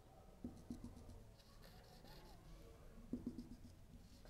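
Faint taps and strokes of a marker on a whiteboard, as short dashes are drawn, in a few small clusters about half a second and three seconds in, over near silence.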